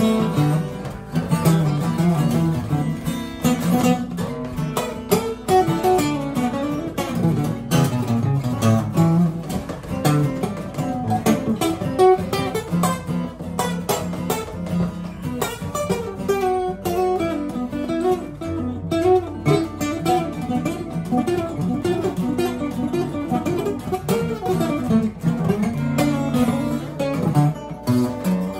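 Two acoustic guitars playing a duet, picked notes over chords, in a bossa nova feel.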